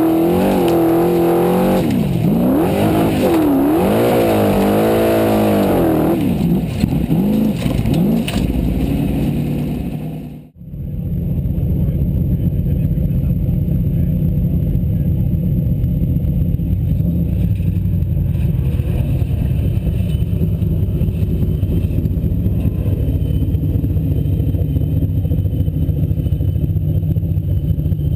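Formula Offroad buggy's engine revved hard, its pitch swinging up and down over and over for about six seconds, then easing. It cuts out abruptly about ten seconds in, and a steady low rumble follows, as of the engine idling.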